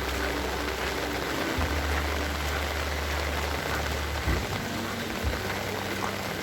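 Heavy rain falling steadily, an even hiss of drops, with a low rumble underneath that drops out briefly a few times.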